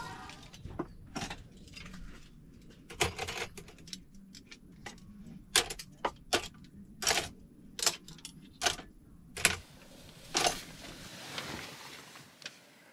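Metal cutlery clinking as it is put away into a kitchen drawer's cutlery tray: a string of sharp, separate clinks, one every half second to a second, which stop about eleven seconds in.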